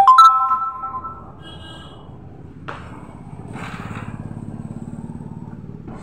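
A sharp metal clank that rings for about a second, then a click, then a small engine rising and fading over a couple of seconds, like a motorcycle going by.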